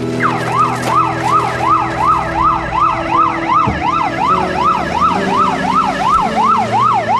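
Police car siren in a fast yelp, its pitch sweeping up and down about three times a second, starting just after the beginning.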